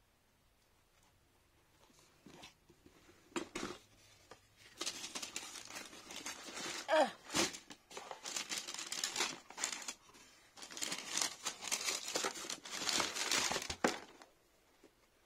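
Tissue paper crinkling and rustling as it is handled in a sneaker box, in stretches with short pauses, with a few sharp clicks before it and a short squeak about seven seconds in.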